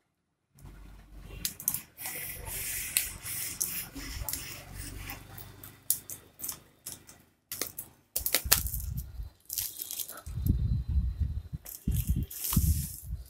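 Unboxing handling noise: bubble wrap and a cardboard shipping box crinkling and scraping as a phone's retail box is lifted out and turned over in the hands, with many irregular crackles and clicks. Dull low thumps of handling bumps come in more heavily in the second half.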